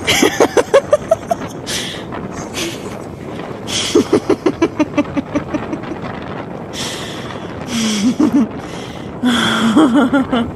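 Motorcycle on the move, its engine and wind rushing over the microphone in gusts, with a person's voice breaking in several times in short pulsed runs.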